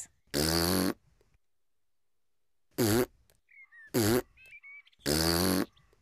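Two buzzing blown raspberries, one near the start and one about five seconds in. Between them come two short, squeaky cartoon hiccups, about a second apart.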